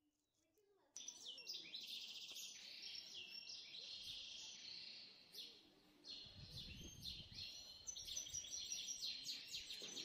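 Many small birds chirping and twittering together in a dense chorus of quick, high, overlapping notes, starting about a second in.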